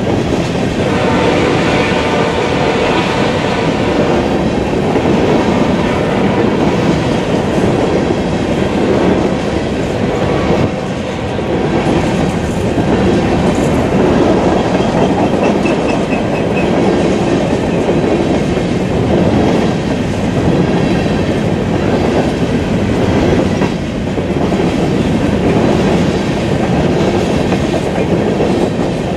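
A string of empty open-top coal hopper cars on a freight train rolling past close by: a steady rumble and clatter of steel wheels on the rails, with the cars rattling.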